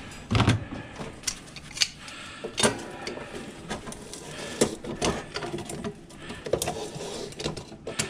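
Irregular metal clicks and clinks of pliers working at the centre hub of a table fan's wire guard. A louder knock comes about half a second in.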